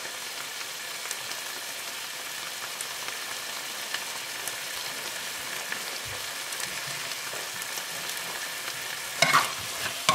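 Diced pork, onions and tomato paste frying in a non-stick pan: a steady sizzle with small crackles. Near the end a spatula stirs and scrapes through the pan.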